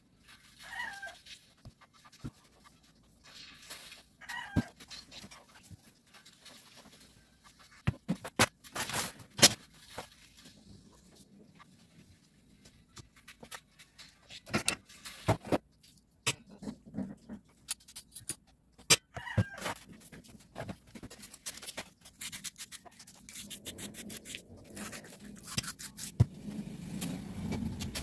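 Metal starter-motor parts being handled and set down on a workbench: scattered clicks and knocks. A low vehicle engine rumble rises near the end.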